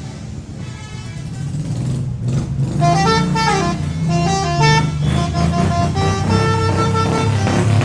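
Multi-tone telolet horn on a Mitsubishi Jetstar. Starting about two seconds in, it plays a quick tune of short notes that step up and down, over the engine's low running.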